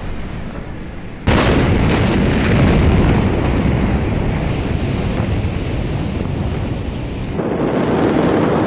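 Beirut port explosion heard on phone video: a sudden loud blast about a second in, followed by several seconds of loud rumbling noise hitting the microphone. Near the end the sound cuts to another recording of continued rumbling noise.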